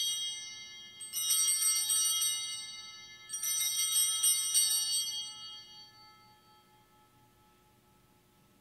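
Altar bells shaken in a set of three rings at the elevation of the chalice during the consecration. A ring already sounding fades off, a second starts about a second in, and a third about three seconds in, with the bells dying away by about six seconds.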